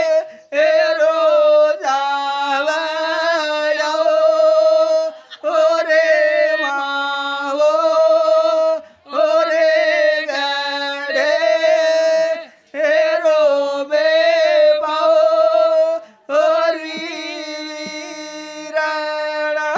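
Banjara devotional song (bhajan) sung on long, steady held notes in phrases of two to four seconds, each broken by a brief gap, with no drumming.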